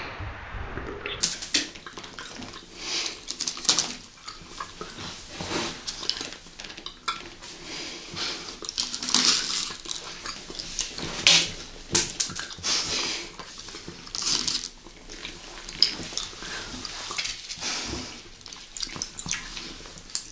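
Close-miked chewing of Skittles Chewies soft candies: irregular clicking and sticky mouth sounds.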